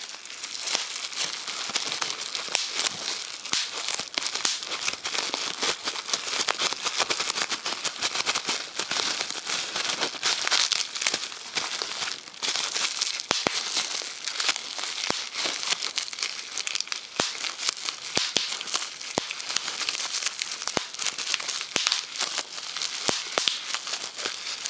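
Plastic bubble wrap being crumpled and handled, giving a continuous crinkling, with sharp pops from individual bubbles scattered through it.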